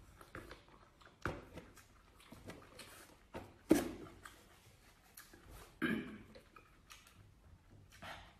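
Cooked crustacean shell being cracked and pulled apart by hand: a few sharp cracks, the loudest a little under halfway through, with smaller clicks of shell between.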